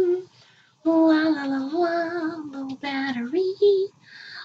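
A woman singing a wordless tune to herself in a sing-song voice, with held, slightly wavering notes. It breaks off just after the start, picks up again about a second in, and stops shortly before the end.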